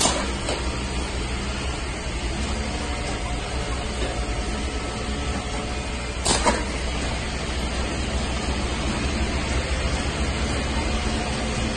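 Fabric cutting and rewinding machine running steadily, its rollers carrying and winding the printed cloth, with a constant low hum. A short sharp knock at the very start and another about six seconds in.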